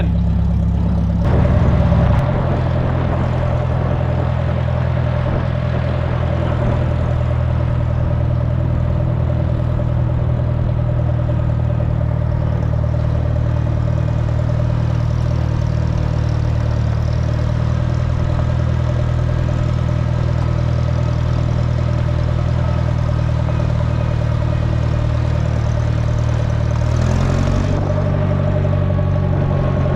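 Allis-Chalmers Model D road grader's engine running steadily, with a brief louder change in its note about a second in. Its pitch steps up a little near the end as the engine speeds up.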